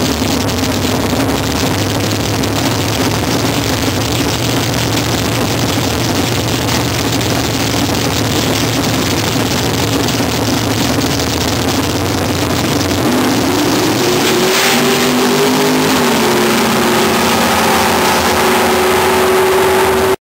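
Drag-race car engines running loudly at the starting line, then rising in pitch about 13 seconds in and holding at high revs.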